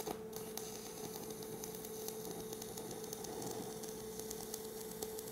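Stick-welding arc of a 3/32-inch 99% nickel electrode on cast iron, crackling and sizzling steadily at a low level, with a faint steady hum underneath.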